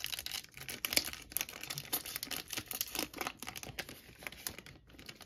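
Plastic cellophane wrapper of a trading-card cello pack crinkling and tearing as it is pulled open by hand, a dense run of small crackles that thins out near the end.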